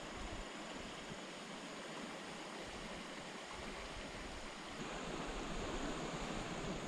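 River water flowing steadily, a continuous even hiss of moving water.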